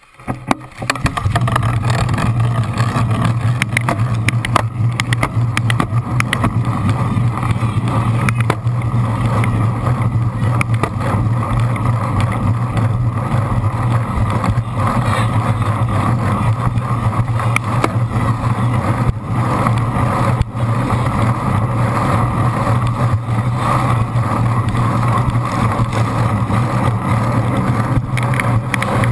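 Rush of wind, tyre and drivetrain noise picked up by a camera mounted on a cyclocross bike racing at speed over wet tarmac, with a strong steady low hum and scattered knocks from bumps. It starts suddenly about a second in as the pack gets going.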